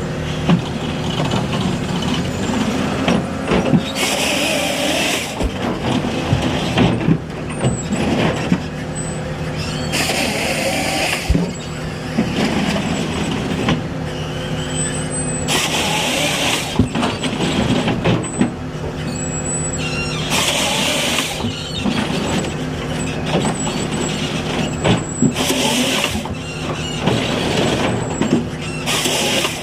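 Ponsse harvester head processing trees, its diesel carrier engine and hydraulics running steadily, with a loud hissing burst about every five to six seconds.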